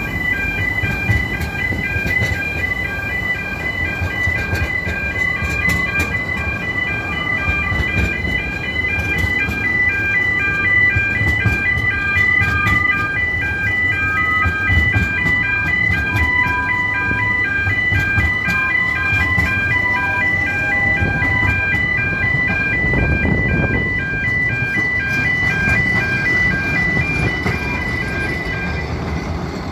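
Electronic level-crossing warning alarm sounding a steady pulsing tone, which stops near the end, over the low rumble of narrow-gauge railway carriages rolling past on a tight curve, with brief wavering wheel squeals.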